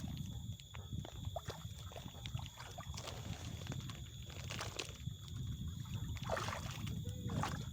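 Water sloshing over a steady low rumble, with scattered light clicks.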